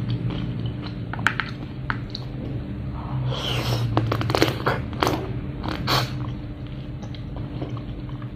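A person chewing and biting into a spicy seafood papaya salad with blue crab and fresh shrimp: wet chewing with scattered crunches, densest about three to six seconds in. A steady low hum sits underneath.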